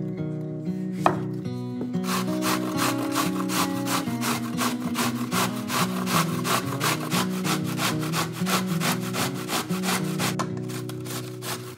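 Fresh zucchini being grated on the coarse side of a stainless steel box grater in fast, even scraping strokes, about four a second, starting about two seconds in. Before that, a single knife chop lands on the wooden cutting board about a second in. Background music plays throughout.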